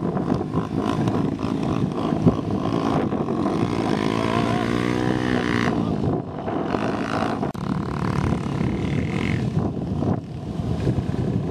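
Honda XR250 Tornado's single-cylinder four-stroke engine running, its pitch rising and falling once about four to six seconds in.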